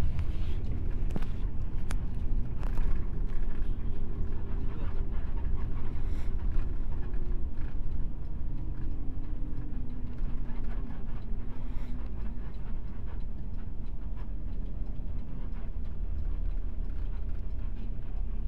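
Cabin noise inside an intercity bus on the move: a steady low engine drone and road rumble, with a few sharp rattling clicks in the first three seconds.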